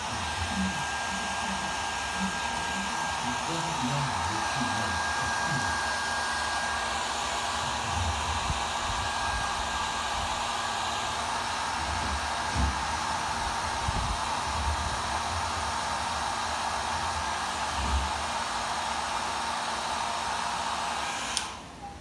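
Handheld hair dryer running steadily, a rush of air with a faint motor whine, drying a Shih Tzu's coat. It cuts off shortly before the end, with a few low thuds of handling under it.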